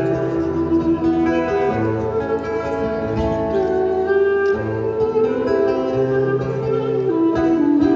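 Live band playing an instrumental passage, with acoustic guitar and steady low bass notes that change about once a second.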